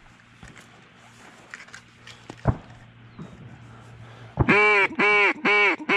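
Mallard duck call blown close by: a run of four loud, drawn-out hen quacks starting about four and a half seconds in, each rising and falling in pitch, the opening of a calling sequence meant to pull in passing ducks. Before that, a faint low hum and a single sharp knock.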